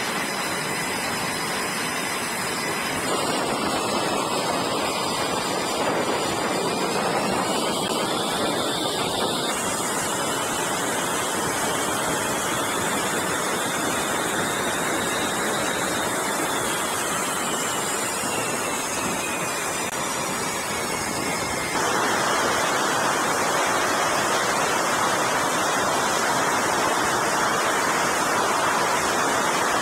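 F/A-18 fighter jet engines running on a carrier flight deck: a steady roar with a faint high whine that slowly rises and falls. The sound changes abruptly a few times.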